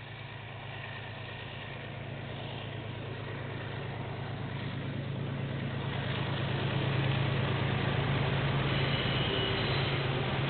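Diesel locomotive of a KiwiRail train running as the train approaches, a steady low engine hum that grows louder over the first seven seconds and then holds as the train passes, with a faint high whine near the end.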